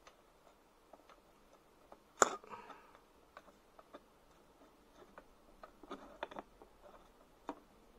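Small clicks and taps of fingers fitting a 3D-printed slip pad into the end of a square metal tube. There is one sharper click about two seconds in with a short rustle after it, and a little cluster of clicks around six seconds.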